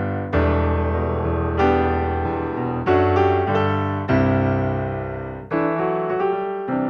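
Background piano music: slow chords struck about every second and a quarter, each left ringing and fading before the next.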